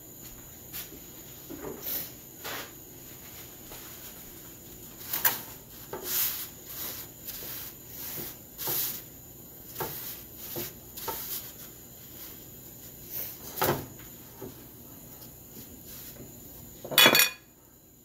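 Kitchen handling sounds while a paratha cooks on a flat pan: scattered soft taps, rubs and knocks as it is pressed down with a cloth, then a louder clatter about a second before the end as a glass jar is picked up.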